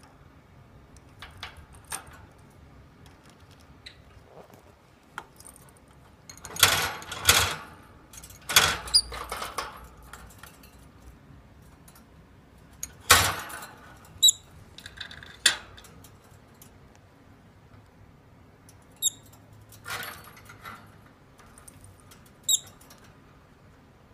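A wire birdcage rattles and scrapes in irregular bursts while a rosy-faced lovebird clambers about its bars. Three short, high chirps come in the second half.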